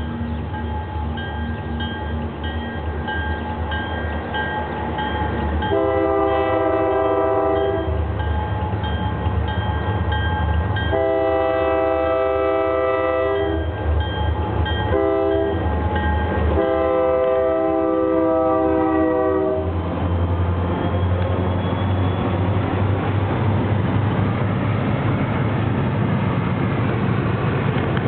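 Canadian-tuned Nathan K3L five-chime horn on an SD40-2 diesel locomotive sounding the grade-crossing signal, long, long, short, long, over the locomotive's bell ringing and the diesel engines running. After the last blast, the locomotives and freight cars pass with a loud, steady rumble and rail noise.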